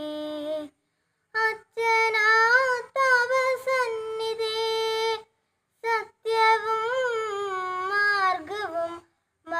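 A girl singing a devotional prayer song solo and unaccompanied, in long held notes, with brief pauses between phrases.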